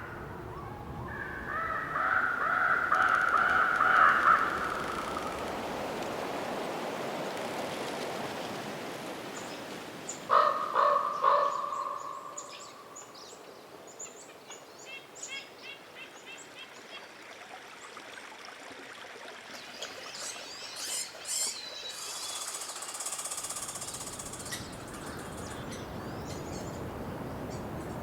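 Winter forest ambience under a steady wind hiss. A corvid gives one long call a few seconds in, then three quick caws about ten seconds in. Small birds chirp faintly and sparsely later on.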